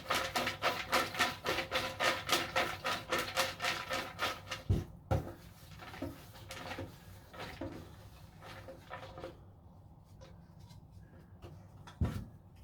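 Raffle tickets being mixed in a drawing container: a fast, even clatter of about five clicks a second for the first five seconds, then two knocks. Softer scattered clicks and rustling follow as a ticket is picked out, with another knock near the end.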